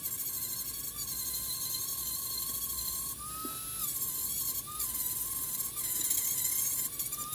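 Dremel rotary tool with a 120-grit sanding disc grinding cured epoxy filler flush on a glazed ceramic platter: a steady high-pitched whine whose pitch wavers slightly as the disc is pressed on, rising briefly about three seconds in, over a gritty sanding hiss.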